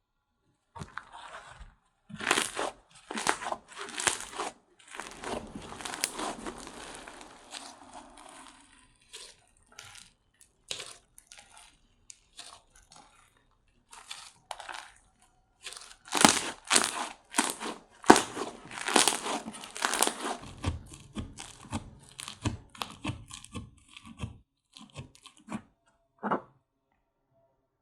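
Slime being stretched, pressed and folded by hand, giving sticky crackling and popping in irregular bursts with short pauses. It is busiest and loudest about two-thirds of the way through.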